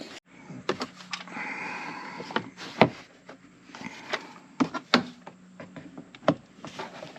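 Plastic interior trim panels of a 2019 Kia Sportage being pried and pulled up by hand: scattered sharp clicks and knocks of the plastic and its retaining clips, with some rustling in between.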